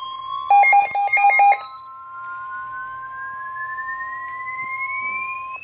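Emergency Alert System severe thunderstorm warning tones. A steady high alert tone cuts off just before the end. About half a second in comes a loud, rapid burst of beeps lasting about a second. Under both, a siren-like tone rises slowly in pitch.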